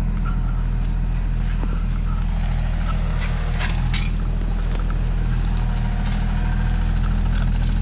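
A 35-horsepower Bobcat compact tractor's diesel engine idling steadily, with footsteps crunching through snow and brush and a few sharp twig snaps.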